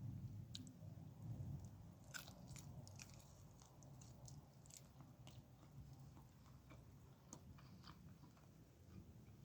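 Close-miked chewing and biting of food, with scattered small crisp crunches and mouth clicks, busiest about two to five seconds in.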